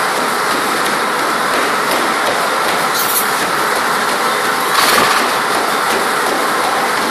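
Horse walking treadmill running steadily: the belt and motor noise with the horse's steps falling on the moving rubber belt, and a brief louder noise about five seconds in.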